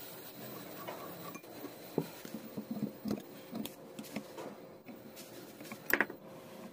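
Small metallic clicks and taps of a screwdriver and pliers working on the cast-iron parts of an old sewing machine being dismantled, scattered and light, the sharpest pair near the end.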